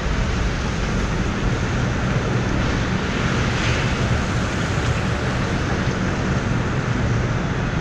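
Steady loud rush of storm wind and rain, with wind buffeting the microphone and a heavy low rumble.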